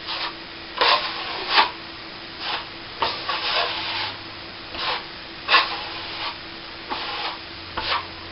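Steel plastering trowel pressed and drawn across setting cornice cement on a plasterboard ceiling patch, polishing it off: a dozen or so short scraping strokes, unevenly spaced.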